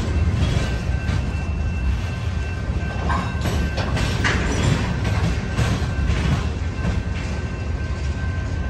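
BNSF manifest freight train rolling over the diamond crossing: a steady low rumble with irregular clacks of wheels over the crossing's rail joints, and a faint steady high-pitched tone above it.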